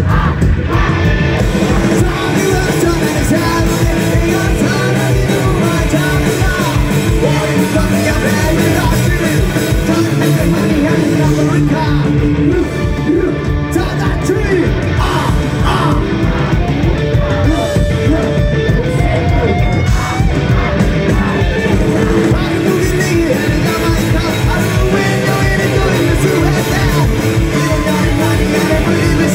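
A punk rock band playing live at full volume, with a steady driving beat and a shouted vocal over it.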